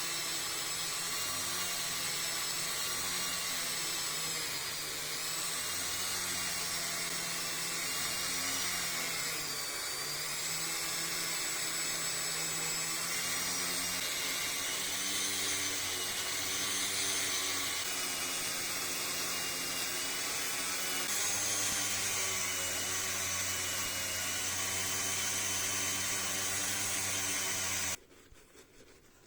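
Dremel rotary tool running at high speed with a polishing pad on Glock 44 metal: a steady whine whose pitch wavers as it is loaded. It stops abruptly near the end.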